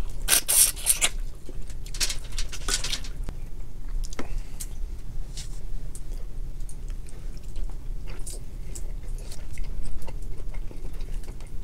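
Two people eating boiled shrimp by hand: close-up chewing and biting. A few louder bursts come in the first three seconds, then soft scattered clicks and crackles of shells and mouths.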